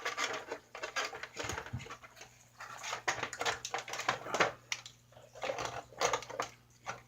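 Hands working the plastic parts of a toy snowmobile, feeding its drive belt through the body: a string of irregular small clicks, rattles and rustles.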